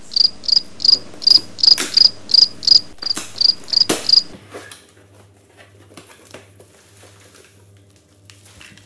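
Cricket chirping, a loud high chirp about three times a second, stopping about four seconds in. After that, faint rustling and clicks as a plastic-wrapped pump is pulled out of a cardboard box.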